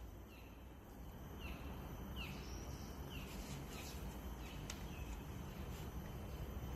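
A bird chirping repeatedly, short falling notes about once every second or less, over a faint steady outdoor background noise.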